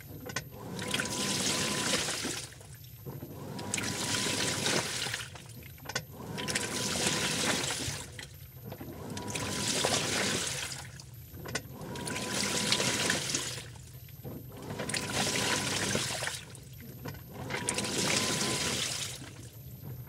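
Washing machine in its wash cycle: the drum turns back and forth, and the clothes and water swish in surges about every three seconds with short pauses between. A faint, very high electronic tone from the machine sounds in the pauses.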